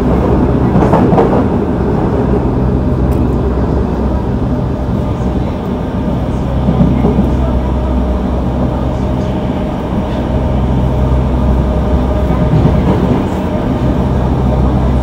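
Yokohama Subway Blue Line 3000A train (Mitsubishi GTO-VVVF) running at a steady speed, with a steady low motor hum over wheel and rail noise.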